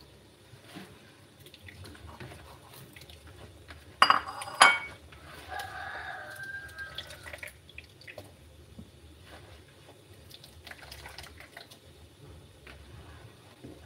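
Hands squeezing wet grated coconut in a plastic basin to press out the coconut milk, with liquid dripping and splashing back into the basin. Two sharp knocks about four seconds in are the loudest sounds.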